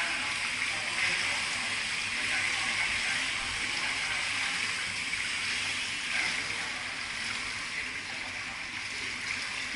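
Swimming-pool water running and lapping: a steady hiss of moving water with light splashing.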